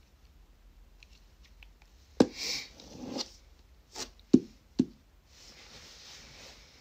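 Handling noise from a phone and hands close to the microphone: a few light taps, then four sharp knocks between about two and five seconds in, with rustling between them and a softer rustle near the end.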